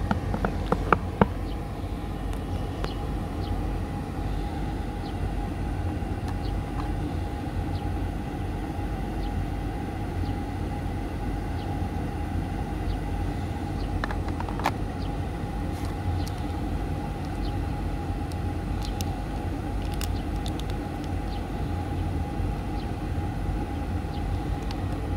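Steady low outdoor rumble, like distant traffic, with a faint constant hum. A few sharp clicks about a second in and once around the middle come from the plastic box insert and accessories being handled.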